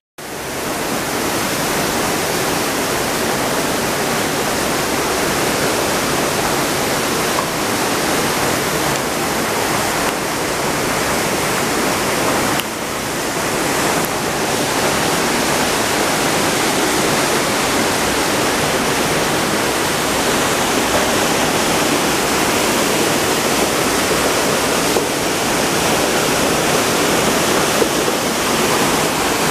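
A shallow mountain river rushing over rocks and small cascades in a rock gorge, a steady loud rush of water. It dips slightly and changes a little about twelve to fourteen seconds in.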